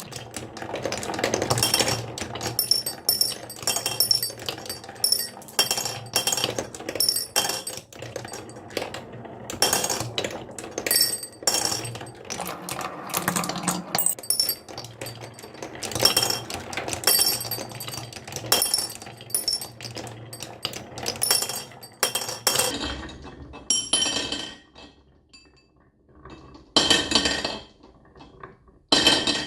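Marbles rolling and clattering down a wooden marble run, a dense run of clicks and glassy clinks. Near the end the clatter thins out into a few separate bursts.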